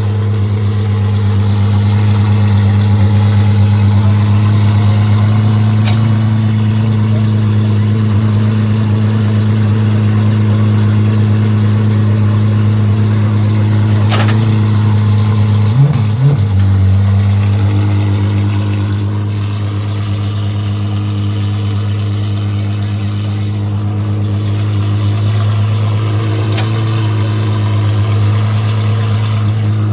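Apollo Intensa Emozione's naturally aspirated V12 idling with a steady, deep tone, with a brief blip of the throttle about halfway through.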